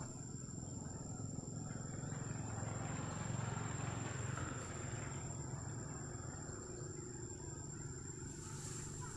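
A motor vehicle passing: engine noise swells over a few seconds, peaks around the middle, then fades away.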